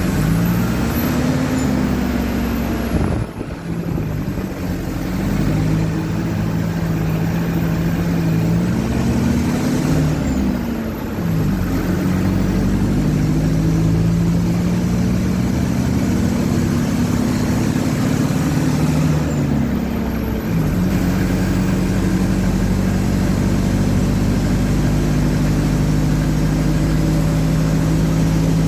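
Mercedes-Benz OF-1722M bus's four-cylinder turbodiesel engine pulling the bus up through the gears. Its pitch rises steadily in each gear and drops at three gear changes, about 3, 11 and 20 seconds in, then holds steady near the end.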